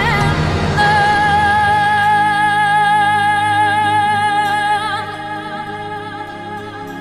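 Background music with a singing voice holding a long wavering note, fading after about five seconds.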